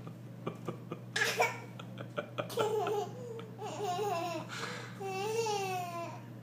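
A young child laughing and babbling: a breathy burst about a second in, then several high, wavering voiced sounds, the longest near the end.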